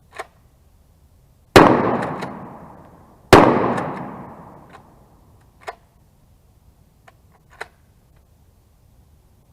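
Two 12 gauge shotgun shots from a Maverick bullpup pump shotgun, about a second and three-quarters apart, each followed by a long fading echo. Smaller sharp clicks come before and after the shots.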